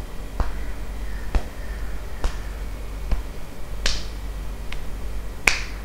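Hands lightly tapping on the scalp and forehead in a self-massage, a soft sharp pat about once a second.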